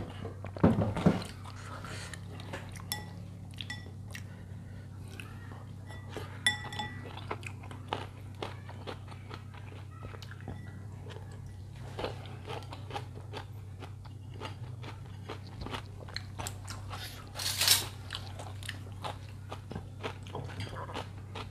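Close-miked eating of noodles and meatballs: chewing and biting with many small wet mouth clicks over a steady low hum. A short ringing tap comes about six seconds in, and a louder noisy mouth sound about seventeen seconds in.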